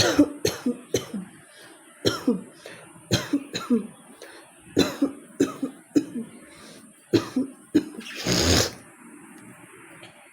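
A person coughing in repeated fits of short, sharp coughs, two to four at a time, with one longer, rougher rasp near the end. It is a cold-related cough.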